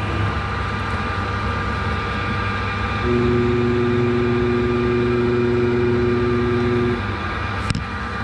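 XYZ ProTurn 1440 ELX CNC lathe running under program with the spindle turning, a steady machine hum. For about four seconds in the middle, a louder steady two-note whine joins as the tool carriage traverses in toward the part.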